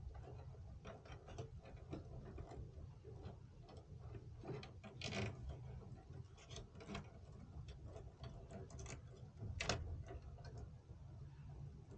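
Irregular small clicks and taps of hardware being handled during PC cooler installation, over a steady low hum.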